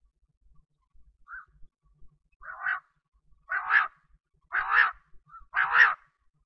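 Quail calling: a run of short, harsh calls about once a second, faint at first and then louder.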